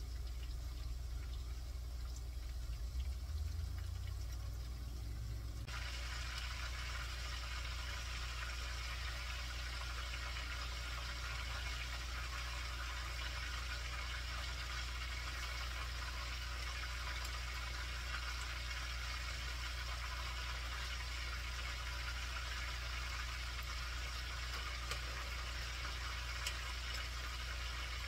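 Battered chicken wingettes deep-frying in a pan of hot oil: a steady crackling sizzle that jumps louder about six seconds in, as more chicken goes into the oil.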